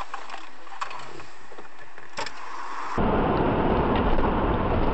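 Road and cabin noise of a moving car, as heard by its dashcam, cutting in abruptly about three seconds in and staying loud with scattered clicks. Before it, a quieter steady hiss with a few faint clicks.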